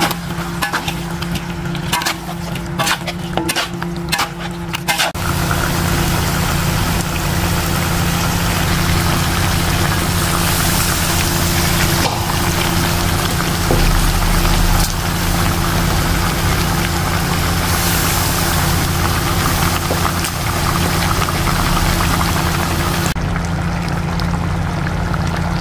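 Chicken pieces cooking in chili paste in a wok: a metal ladle scrapes and knocks against the pan for the first few seconds, then a steady sizzle of frying over a low, constant hum.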